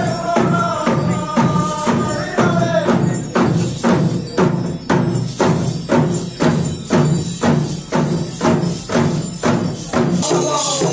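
Naga dance troupe's hand-held drums and percussion beating a steady rhythm of about two strokes a second. Group chanting accompanies it for the first few seconds. Near the end the sound cuts abruptly to a different recording.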